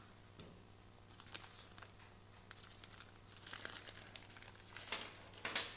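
Small parts being handled: light clicks and taps of small metal pieces with bursts of rustling, busier and louder in the last couple of seconds.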